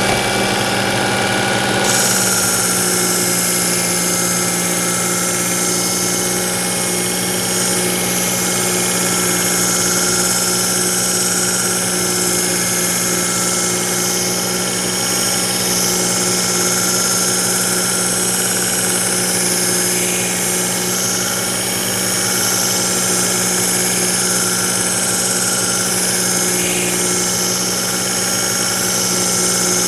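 Work Sharp powered belt knife sharpener running with its X65 abrasive belt: a steady motor hum, joined about two seconds in by a continuous high grinding hiss as the kitchen knife's edge is drawn across the moving belt.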